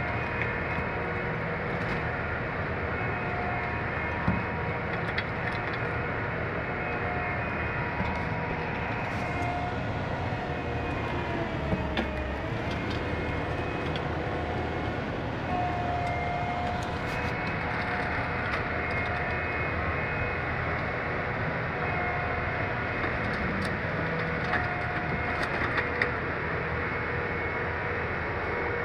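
Diesel engine and hydraulics of a grapple demolition excavator running steadily, with a whine that steps between pitches and dips and recovers about halfway through as the load changes. A few sharp knocks come through now and then.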